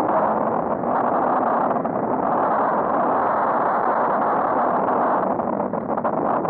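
Steady rush of wind and road-traffic noise on a cyclist's helmet-camera microphone while riding.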